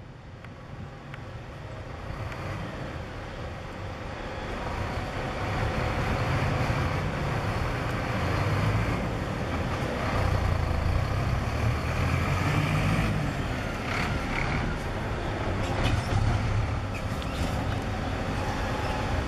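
A diesel coach bus's engine running as it manoeuvres and drives closer, growing louder. Near the end there are a couple of short hisses of air, typical of the bus's air brakes.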